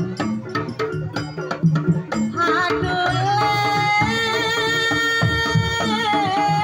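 Live jaranan ensemble music: quick hand-drum strokes, then from about two and a half seconds in a long held high melody line over steady low tones.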